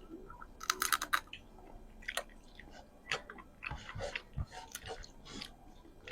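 Close-miked chewing and crunching of crab, with crab shell cracking and clicking between the teeth. The loudest part is a quick run of sharp cracks about a second in; scattered clicks and wet chewing follow.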